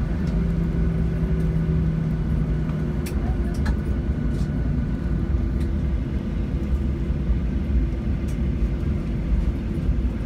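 Airliner cabin noise while taxiing after landing: a steady low rumble of the idling engines and rolling wheels. A low hum fades out about three seconds in, and there are a few faint rattles.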